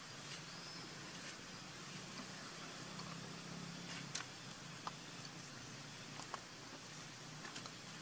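Faint outdoor ambience: a steady soft hiss with a few short sharp clicks or snaps, scattered from about halfway through to near the end.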